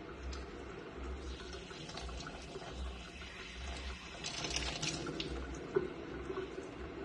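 Kitchen faucet running, its spray splashing onto a young chimpanzee and into the sink, with a louder splashing stretch about four to five seconds in as the chimp puts its mouth into the stream. A single sharp click near the end.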